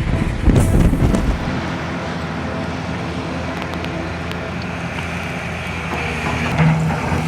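Heavy vehicle engine running hard, with a few loud low thumps in the first second or so, then a steady mechanical rumble.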